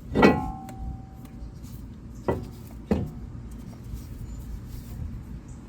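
A sharp metal clank that rings on briefly, then two shorter knocks, from metal brake parts and tools being handled while a brake caliper is fitted.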